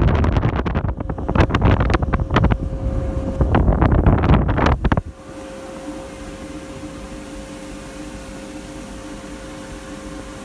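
Fabric rustling and rubbing right against the microphone, full of crackles, like a duvet being moved. It cuts off suddenly about five seconds in, leaving a steady low hum with a faint held tone.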